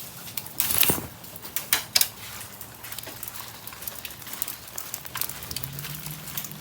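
Umbrella being put up, with a loud rustle and snap about a second in and another about two seconds in, followed by scattered light taps of raindrops pattering on the umbrella.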